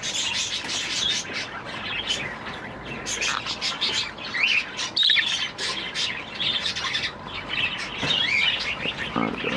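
A flock of budgerigars chattering: many quick, overlapping chirps, warbles and squawks.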